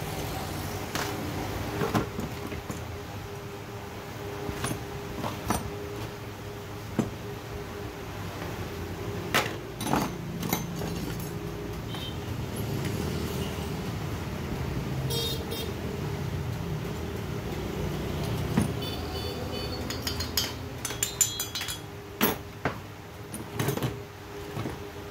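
Small metal clicks, clinks and knocks of hand tools and loose parts as a petrol chainsaw engine is taken apart, coming irregularly and crowding together near the end, over a steady low background hum.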